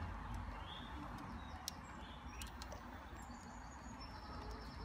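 Faint birds chirping in the background over a low steady rumble, with one sharp light click about a third of the way through.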